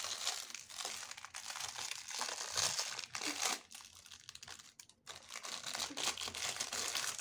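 Crinkly pink wrapper of an L.O.L. Surprise doll crackling and tearing as fingers pick it open, with a short lull about four and a half seconds in.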